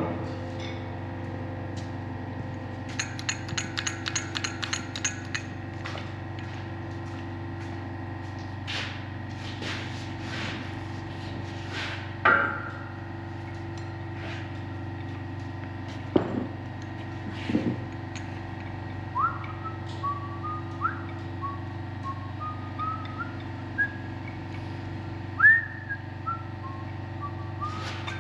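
Steady shop hum with metal parts clinking and knocking: a quick rattle of sharp ticks near the start and scattered knocks in the middle. In the second half comes a string of short, high, upward-gliding whistled notes at changing pitches.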